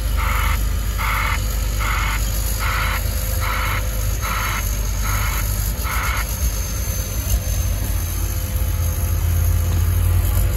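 Reversing alarm on a snow-clearing road grader: about eight evenly spaced, hissing beeps, one a little under every second, that stop about six seconds in. The machine's diesel engine runs steadily underneath and grows louder near the end.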